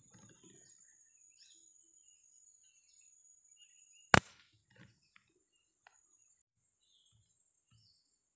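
A single air-rifle shot about four seconds in, a sharp crack that is by far the loudest sound, followed by a few faint knocks over the next second or two.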